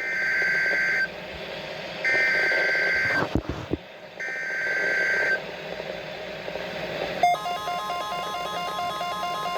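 Emergency Alert System end-of-message signal: three bursts of warbling digital data tones, each about a second long and a second apart, marking the end of the alert. After about seven seconds an electronic tune of repeating beeps begins.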